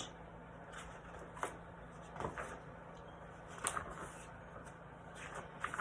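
A few faint, short handling knocks and rustles, scattered a second or so apart, over a low steady hum.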